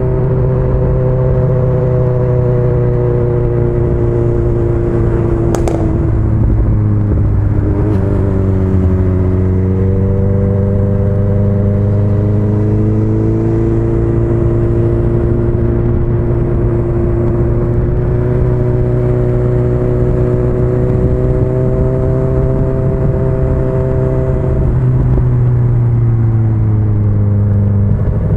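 Motorcycle engine running at road speed, its pitch dropping about five seconds in, climbing back, and dropping again near the end as the rider rolls off and back on through bends, over a steady low rumble. A sharp click sounds about six seconds in.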